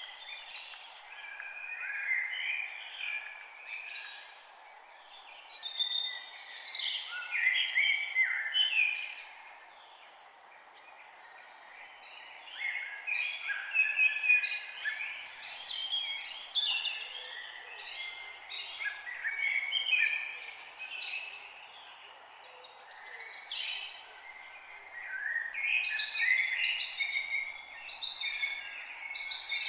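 A chorus of songbirds, many chirping and singing at once in overlapping phrases that swell and fade every few seconds, over a faint steady background hiss.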